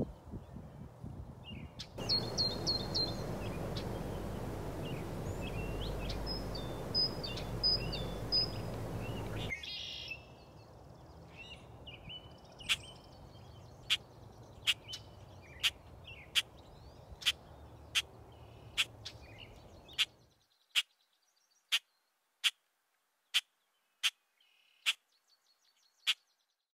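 Wild songbirds chirping and calling over a steady background hiss, which drops about ten seconds in and fades out near twenty. In the last few seconds a single sharp chirp repeats about once a second over near silence.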